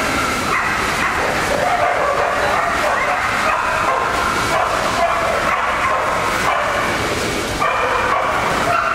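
Dogs barking and yipping steadily over the general din of a busy dog-show hall.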